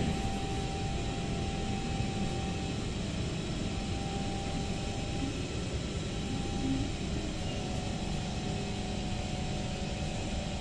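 Steady hum and hiss inside an SMRT C151 train car standing at a station platform, with a few faint steady tones over the noise.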